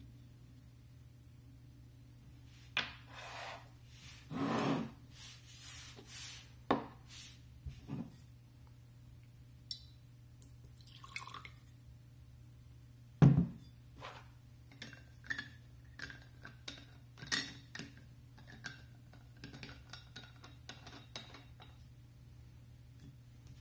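Whisky poured from a glass bottle into a small glass tumbler on a wooden table: trickling and drips among scattered clinks and knocks of glass. One much louder knock about 13 seconds in, followed by a run of small clicks and brief glassy rings.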